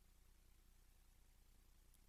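Near silence: only a faint steady low hum and hiss.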